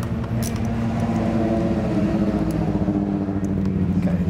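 A vehicle engine running steadily at a constant speed, its pitch shifting only slightly, with a few faint clicks from a socket wrench working the lower triple clamp bolts.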